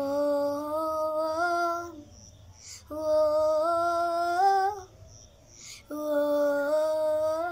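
A young boy singing unaccompanied: three long sung phrases on held notes, each stepping up slightly in pitch toward its end, with short pauses between them.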